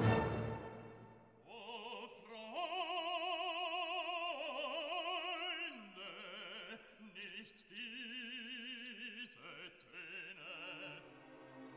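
Background music: an operatic voice singing long, held notes with wide vibrato, the pitch stepping to a new note every second or few.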